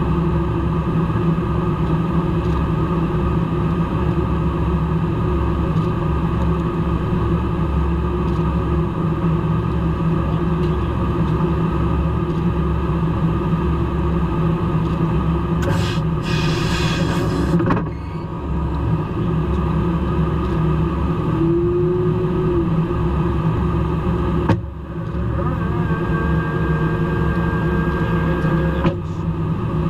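Steady low rumble of engine and airflow noise inside a KC-135 Stratotanker's boom pod during air refueling, with a short burst of hiss partway through and two sudden brief dips in the noise.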